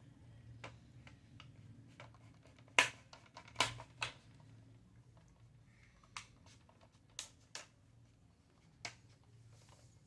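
Irregular sharp clicks and taps of plastic laptop screen parts being handled and fitted together, the loudest a few seconds in, over a low steady hum.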